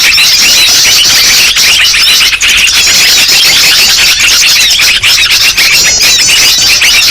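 A loud, dense chorus of many small birds chirping and twittering at once, short rapid calls overlapping without a break: the noisy, agitated bird calls played as a lure to attract small birds.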